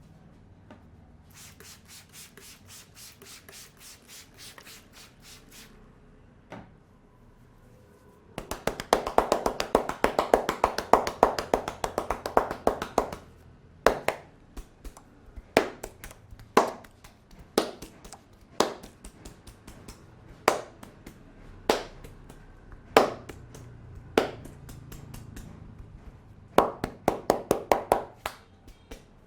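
Hands tapping and slapping on the head in an Indian head massage: first a light rapid patter, then a fast, loud drumming of the hands, then single sharp slaps about once a second, with another quick run of slaps near the end.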